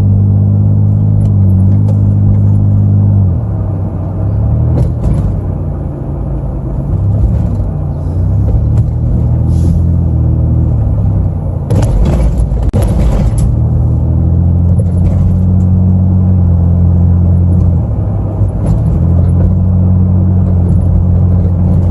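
Vehicle engine and road noise heard from inside the cab while driving, a loud low drone whose pitch drops about three seconds in and climbs back later as the speed changes. A brief rushing noise about twelve seconds in.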